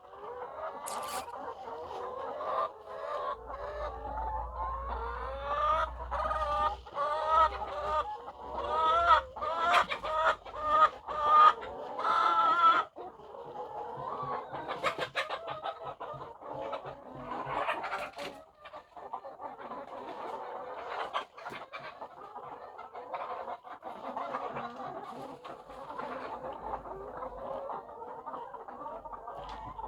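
A flock of layer hens clucking, many calls overlapping. In the middle, a run of louder, repeated calls that rise in pitch builds up and then stops suddenly about thirteen seconds in, leaving the steady clucking of the flock.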